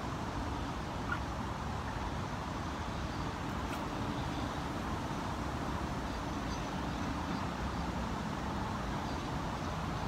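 Strong wind buffeting the microphone: a steady, low rumble.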